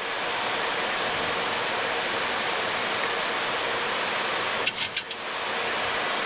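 Steady rush of airflow and engine noise inside an airliner cockpit on final approach, with landing gear down and flaps at 40, under a faint steady hum. A short cluster of clicks comes about five seconds in.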